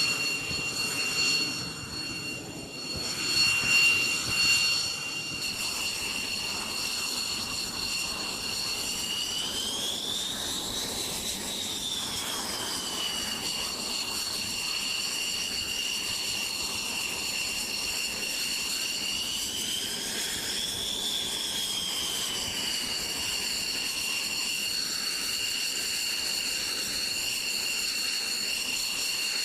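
Jet aircraft engine running with a steady high-pitched whine over a rushing noise. The whine rises and falls back twice, about ten and twenty seconds in, and there are a few louder surges in the first seconds.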